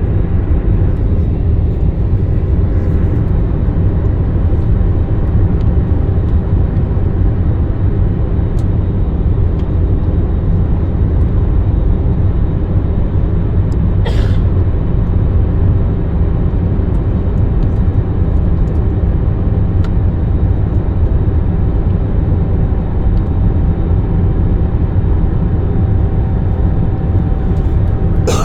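Airliner cabin noise on the approach to landing: a steady, loud, low drone of the engines and the air rushing past the fuselage. There is a short hiss about halfway through and a sharp click near the end.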